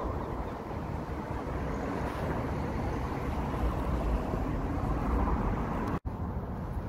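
Wind rumbling on the microphone over a steady outdoor background noise, with a brief dropout about six seconds in.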